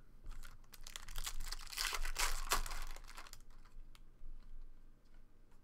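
Chrome baseball cards being handled and slid through the hands: a run of crinkly rustling and light clicks for about two and a half seconds, then only a few small clicks.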